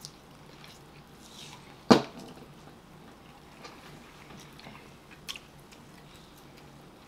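Quiet eating sounds: chewing and hands tearing rotisserie chicken meat apart, with one sharp click about two seconds in and a smaller one a little after five seconds.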